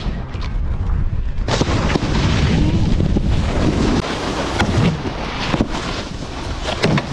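Snowboard riding on snow, with wind rumbling on the microphone and several sharp knocks.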